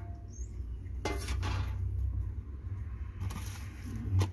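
Starter motor end housing and its screws being handled by hand: a few metal clinks and scraping rustles over a steady low hum.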